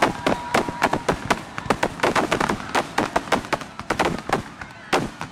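Fireworks going off in rapid succession: many sharp bangs and crackles a second. A brief steady tone sounds during the first second.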